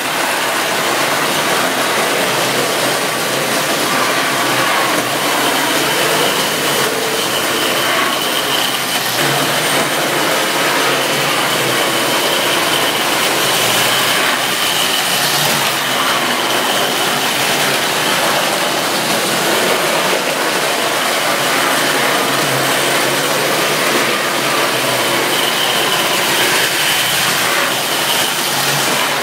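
Tri-ang model trains running on steel track: a steady rolling noise of metal wheels on rail with a faint, thin, high whine from the motors.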